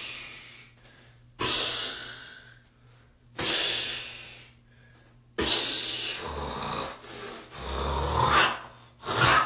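A man making dragon noises with his voice: sharp, breathy hissing exhales about two seconds apart, then longer growling snarls in the second half.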